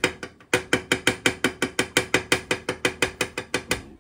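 Handheld spice mill being twisted over a saucepan: rapid, even ratcheting clicks, about six or seven a second, with a short pause about half a second in, stopping just before the end.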